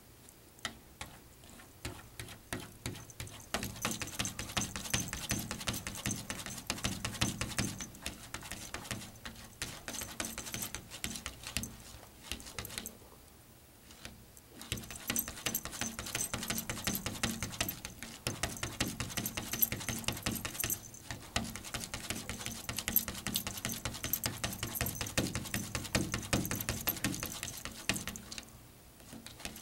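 Virginia opossum chewing dry cat food kibble: a fast run of crunching, smacking clicks, broken by a short pause about halfway through and another near the end.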